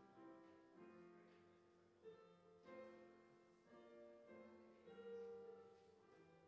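Faint, slow keyboard music: soft chords that change every second or so, each note fading after it is struck.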